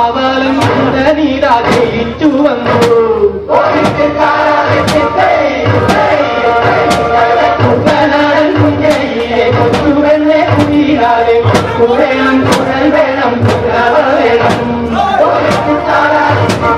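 Kerala boat-race song (vanchipattu): a group of voices chanting and singing in unison over a steady percussion beat.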